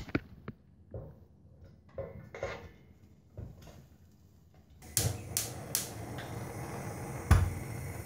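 A knife scraping chopped tomato, onion and garlic off a wooden cutting board into a stainless steel pot, with soft knocks and scrapes. About five seconds in a steady hiss starts, with a few sharp clicks and one loud knock near the end.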